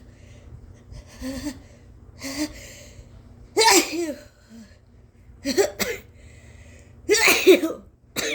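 A woman sneezing again and again from an induced fit: a couple of voiced catching breaths, then a loud sneeze about three and a half seconds in, a quick double sneeze around five and a half seconds, and the loudest sneeze about seven seconds in, with another starting at the very end.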